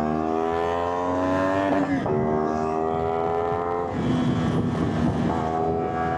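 Motorcycle engine under acceleration. Its pitch climbs steadily, drops sharply at a gear change about two seconds in, climbs again, then breaks up near four seconds before steadying at a lower pitch.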